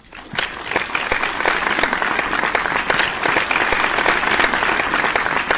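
Audience applauding: many hands clapping in a dense, steady patter that swells up quickly at the start.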